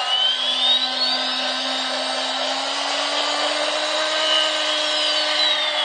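Battery-powered toy train's small electric motor whirring steadily as the train runs along its track. A low hum creeps slowly up in pitch, and a thin high whine climbs over the first two seconds and falls again near the end.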